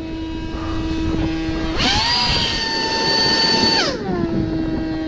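Small electric motor whining steadily. About two seconds in its pitch sweeps sharply up and holds, then about four seconds in it glides back down to the lower pitch.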